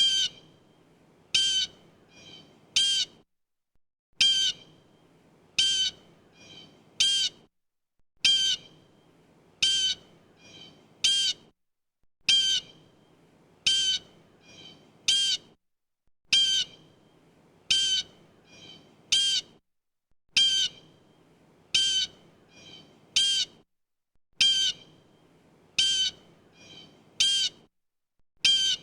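Blue jay giving harsh, squawking jay calls in short groups: three loud calls with two softer ones tucked between the last two. The same group repeats about every four seconds, with short pauses between.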